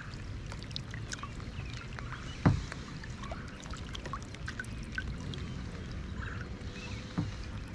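Rain falling on pond water and a kayak: a steady hiss with many scattered sharp drop ticks. A single knock on the kayak sounds about two and a half seconds in, and a fainter one near the end.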